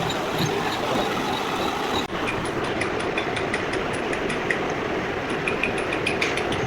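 Milling machine running steadily while cutting a helical gear. About two seconds in the sound briefly dips and changes, and light rapid ticking then rides over the steady machine noise.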